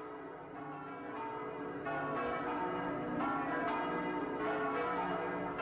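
Church bells ringing, several bells striking over one another, getting louder about two seconds in.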